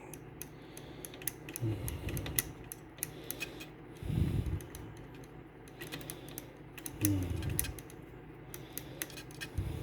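Scattered light clicks and small taps, with a few soft low thumps, from cotton swabs dipped in alcohol being worked over a cassette deck's tape head.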